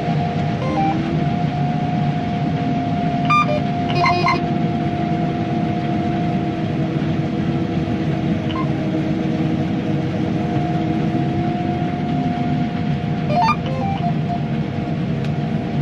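Steady drone of a John Deere S670 combine heard inside its cab, with short electronic beeps from the cab's monitors: a pair of beeps about three and four seconds in and a short rising bloop near the end. The beeps are the tone for raising the header and the GPS alert that auto-steer has caught signal and is back on track.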